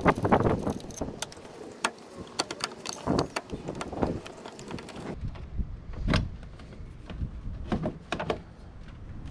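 Scattered clicks, knocks and rubbing as a car's rubber air intake hose and plastic intake duct are twisted and pulled loose from the engine by hand, with a few heavier thuds among lighter taps.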